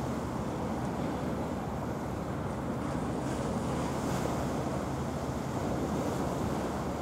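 Steady wind buffeting the microphone over the wash of a choppy sea, with no distinct engine note.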